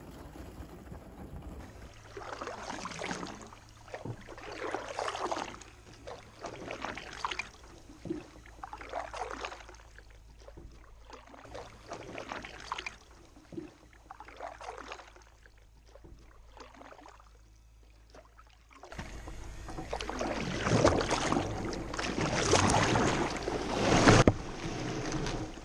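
Canoe being paddled, with a swish of the paddle stroke in the water about every two seconds. A louder, rougher stretch of water noise follows in the last few seconds.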